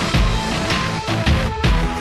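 Background music: an instrumental stretch of a heavy, driving song with strong bass hits, between its sung lines.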